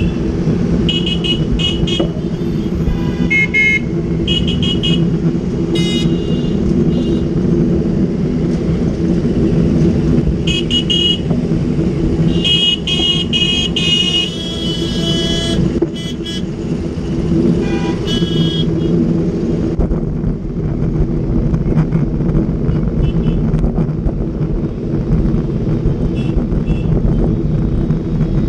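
Dense city road traffic: a steady engine rumble with vehicle horns honking again and again, mostly short toots with one longer blast in the middle, thinning out over the last third.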